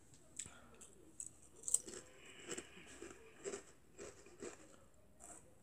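Faint chewing of fast-food fries, with soft, irregular crunches and mouth clicks about once a second.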